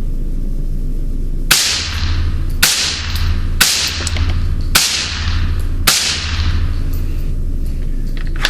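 Five suppressed rifle shots from a Ruger 10/22 rebarreled to .17 HM2 and fitted with a SilencerCo Sparrow suppressor, about a second apart. Each shot is followed by echo ringing off the indoor range's walls.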